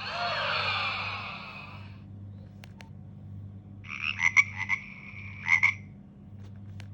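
Nokia 1650 mobile phone playing ringtones through its small loudspeaker: first a warbling sound of many quickly gliding pitches lasting about two seconds, then, about four seconds in, a pulsing high tone with sharp beats lasting about two seconds.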